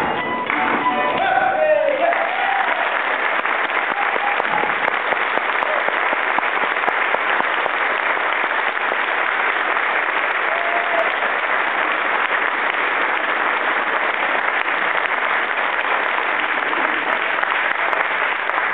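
Theatre audience applauding steadily, starting as the ensemble's last musical notes stop about two seconds in.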